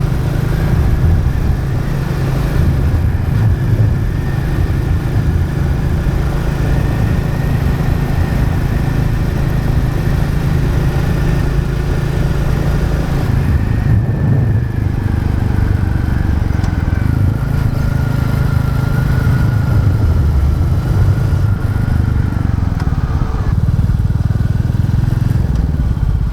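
Royal Enfield Classic 350's single-cylinder engine running steadily as the motorcycle is ridden along the road.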